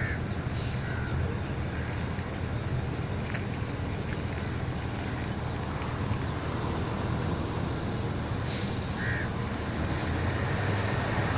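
Steady low rumble of the Scania G410 cement bulk tanker's diesel engine running, with a few short bird calls over it.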